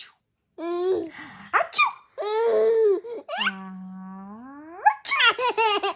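A baby laughing in high-pitched squeals at a woman's fake sneeze: a drawn-out 'aaah' that ends in a sharp 'choo' a little before five seconds in. A quick run of the baby's laughter follows.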